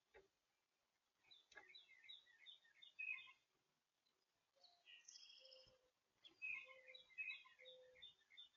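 Faint songbird chirping at a backyard feeder: two runs of quick, high twittering notes, about a second in and again from about six seconds, with a few short low notes between them.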